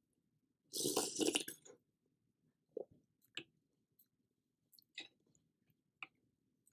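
A person eating spicy seafood noodle soup at close range. About a second in there is one loud, noisy mouthful lasting about a second, then a few soft, separate chewing and mouth sounds.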